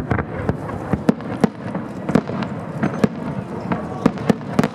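Fireworks going off in a quick, irregular string of sharp bangs and pops, two or three a second.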